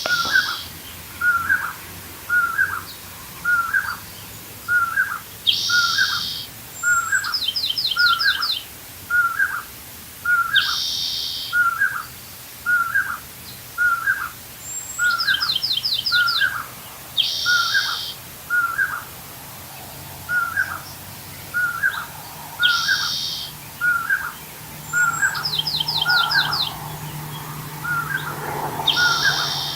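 Bird calls of an unidentified species. A short note repeats about once a second. Every five seconds or so comes a higher burst, and now and then a quick run of about six notes.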